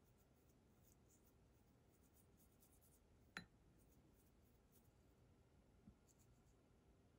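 Faint scratching of toothbrush bristles scrubbing a small strip held under water in a glass bowl, with one sharp click about three and a half seconds in.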